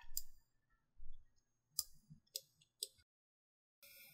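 Several faint, sharp computer mouse clicks, with soft low thumps near the start and about a second in.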